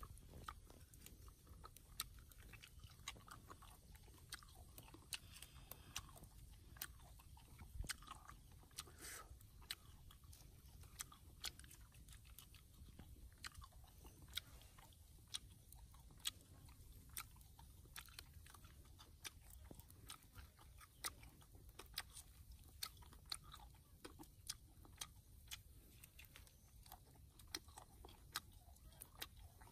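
A big spider being pulled apart and eaten: its legs and shell crack and crunch as it is chewed, in faint, sharp, irregular crunches about once or twice a second.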